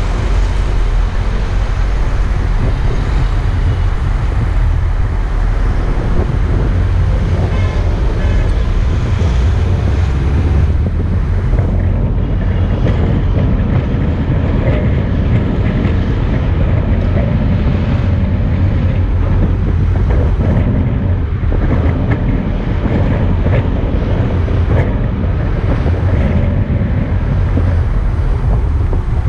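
Road noise of a moving car: a steady low rumble of engine and tyres.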